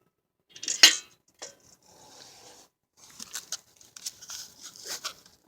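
Metal tools and parts clinking as they are handled: one sharp clink about a second in, then scattered lighter clicks and clatters.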